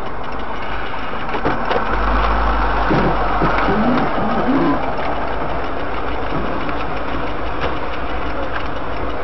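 Car engine idling, heard from inside the stationary car's cabin as a steady low hum with hiss, the hum a little louder for a couple of seconds midway.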